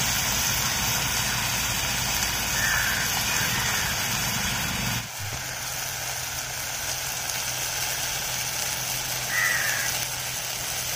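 Masala paste frying in oil in an aluminium kadhai over a wood-fired clay chulha, giving a steady sizzling hiss.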